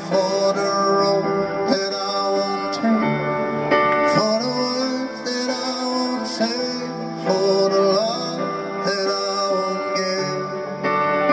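Music playing: a song with a singing voice over guitar and a steady beat.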